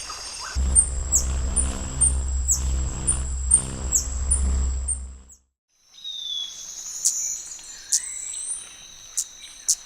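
Birds and insects calling: a high chirp repeats about twice a second over a low hum, cuts off suddenly, and after a brief silence gives way to other whistling bird calls and sharp clicks.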